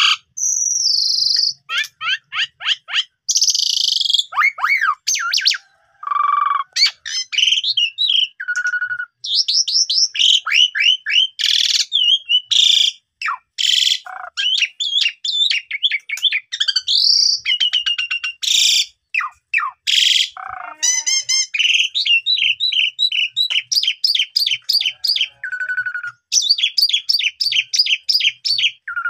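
Asian pied starling (jalak suren) singing nonstop in full voice: a fast, varied run of chirps, whistles, harsh scratchy notes and stuttering trills.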